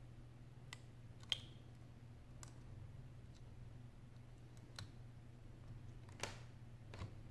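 Small, sharp clicks from fingers working the display flex-cable connectors on an iPhone 6 logic board, about six of them spaced irregularly, the loudest just over a second in. A faint low hum runs underneath.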